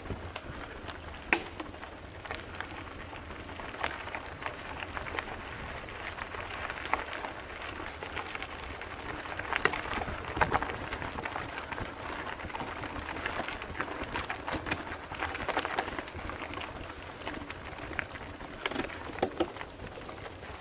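Mountain bike rolling over a rough dirt trail: a steady crackle of tyres on grit and gravel, with scattered clicks and knocks from stones and the bike rattling.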